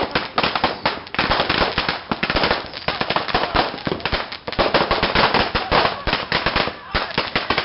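A long string of firecrackers going off, many sharp bangs a second in a dense, continuous crackle, with a brief lull about halfway through.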